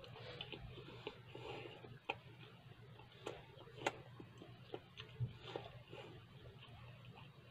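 Chewing with the mouth closed: soft, irregular mouth clicks and smacks over a low steady hum.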